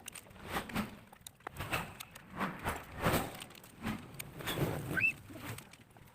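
Irregular knocks and clicks of engine parts and hand tools being handled during engine assembly, a few each second, with a short high chirp about five seconds in.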